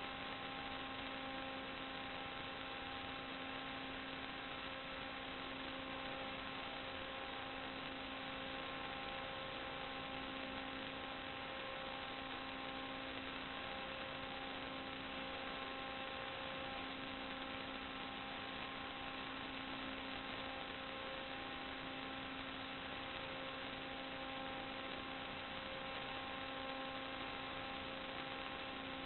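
Steady electrical hum over an even hiss, a buzz made of several evenly spaced steady tones that never changes: the kind of noise an analog FPV video receiver and recorder's audio track carries.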